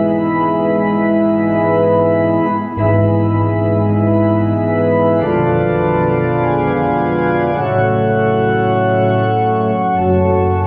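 Tokai YX 400 electronic organ on a pipe-organ registration, playing a hymn in held chords that change about every two and a half seconds.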